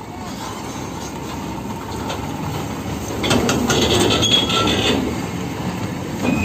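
A heavy flatbed semi-trailer truck loaded with a steel box girder rolling slowly past, its tyres and trailer giving a low rumble and rattle. The noise swells about three seconds in as the trailer's axles come by, with a few short high squeals.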